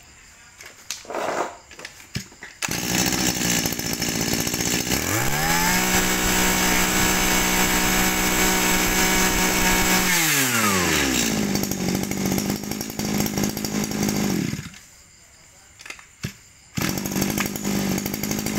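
Shindaiwa 230 brush cutter's small two-stroke engine (32 mm bore, 23 cc) starting about three seconds in and idling. It is revved up and held at high speed for about five seconds, then drops back to idle and shuts off. It starts again near the end and idles for a couple of seconds.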